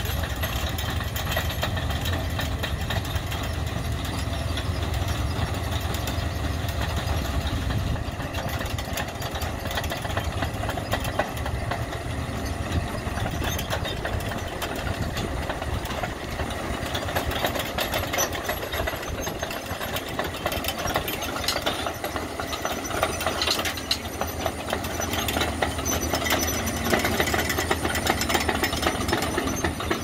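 Engine of heavy farm machinery running steadily with a dense clatter. The low rumble drops away about eight seconds in.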